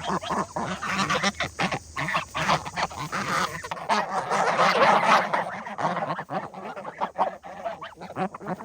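A flock of farmyard fowl calling, with many short calls overlapping; the calls are thickest about halfway through.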